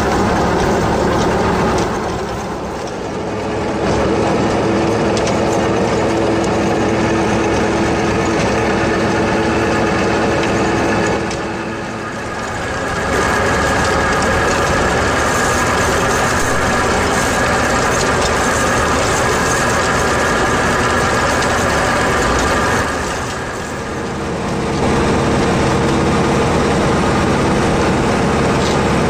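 Farmtrac 6065 tractor's diesel engine running steadily, driving a rotary tiller through soil at first. The sound dips briefly three times, about 3, 12 and 23 seconds in.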